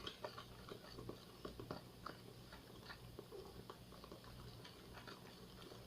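Faint, irregular small clicks and taps of hands handling slime ingredients as a drop of food coloring is added, over a low steady hum.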